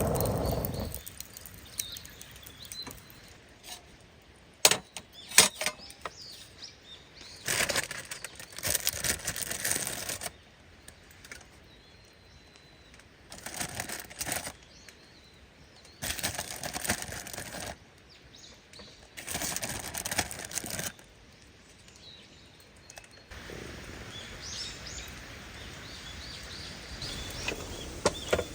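Bursts of rustling, each lasting one to three seconds, as camping gear is handled and packed, with a few sharp clicks early on. Faint bird chirps sound between the bursts.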